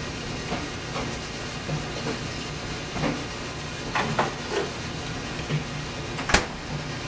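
Light knocks and clinks as items are taken from a refrigerator and its door is shut, with one sharp click near the end, over a steady low hum.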